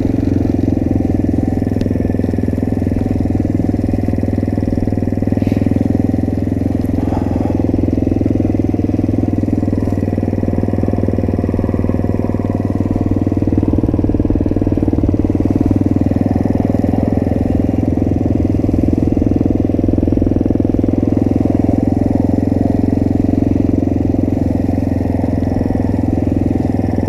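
Small Grom-style motorcycle engine (Motrac M5R) running steadily while riding, its pitch rising and falling gently with the throttle.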